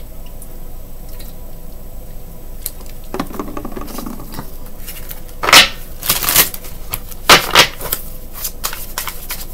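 A deck of reading cards being shuffled by hand. There are several sharp bursts of card noise in the second half.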